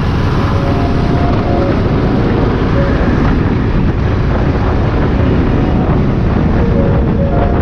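Wind rushing and buffeting over the microphone of a camera on a moving motorcycle, with engine and road noise underneath.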